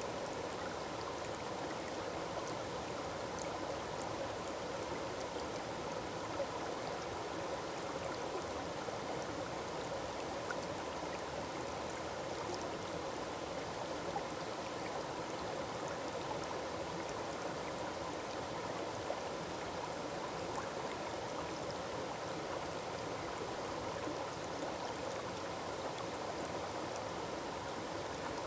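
Small forest waterfall running steadily: an even rush of falling water with faint splashes.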